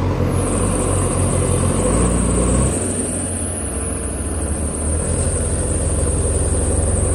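Heavy diesel engine of a TATA Hitachi tracked excavator running steadily at close range. The low rumble eases about three seconds in, and a thin high whine comes in at the start and holds.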